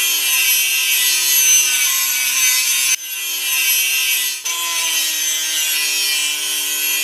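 Hand angle grinder running with its disc working against a workpiece: a loud, harsh hiss over the motor's steady whine. The sound breaks off and resumes abruptly twice, about three and four and a half seconds in.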